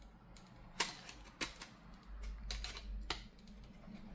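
Utility knife blade cutting and scraping away melted plastic from an e-paper display's plastic back casing, with a few sharp clicks as the blade catches and snaps through the plastic.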